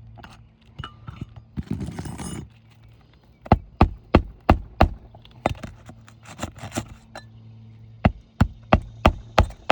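Hammer striking in quick runs of sharp knocks, about three a second, driving roofing nails into asphalt shingles. A brief rustle of the shingles comes about two seconds in.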